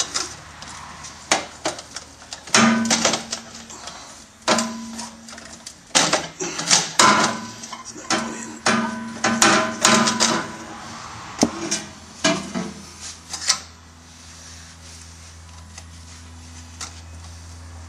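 Clinks, knocks and clicks of metal tools against stainless exhaust pipes and clamps as the sections are worked into place, some strikes briefly ringing. In the last few seconds the clatter stops, leaving a steady low hum.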